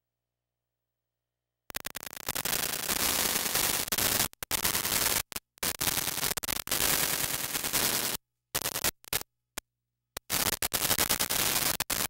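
Loud, harsh static-like noise that cuts in sharply after a second or two of dead silence, then comes and goes in ragged bursts with abrupt dropouts to silence, several of them in the second half.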